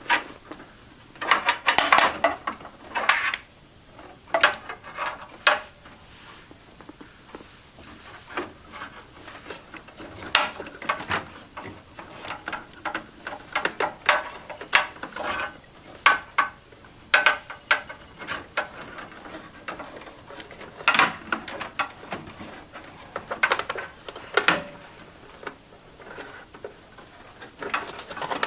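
Irregular clicks, rattles and scrapes of SATA and power cables and their plastic connectors being handled and pushed onto drives inside a desktop computer's metal case.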